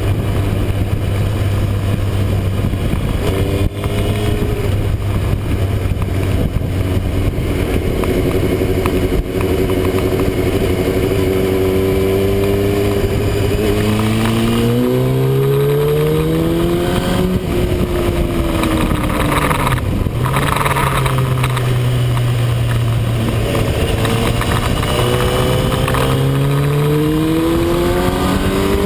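Motorcycle engine running at a steady cruise, then accelerating: its pitch rises about halfway through, dips briefly, holds higher and climbs again near the end. Wind and road noise rush steadily underneath.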